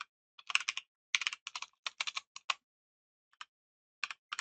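Typing on a computer keyboard: quick runs of keystrokes, then a pause of about a second and a half with a single tap, before typing resumes near the end.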